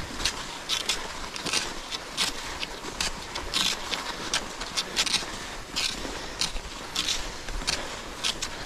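Cross-country skis and poles working over groomed snow: a steady hiss of gliding skis, broken by short, crisp scrapes and pole plants two or three times a second in an uneven rhythm.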